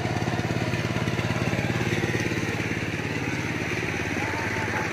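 A small engine running steadily, with a fast, even pulse.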